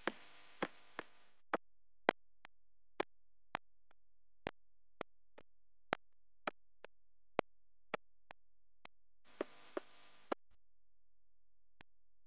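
Quiet, sparse stretch of background music: short, crisp ticks about every half second, with two brief swells of fuller sound near the start and about ten seconds in.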